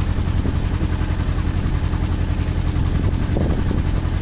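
Tour boat's engine running steadily while the boat is under way, heard from on board: a loud low throb with a fast, even pulse.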